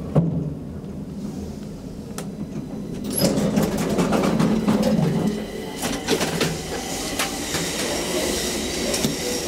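Hydraulic elevator car travelling in its shaft: a low hum with steady rattling and clattering from the car, which gets louder and busier about three seconds in.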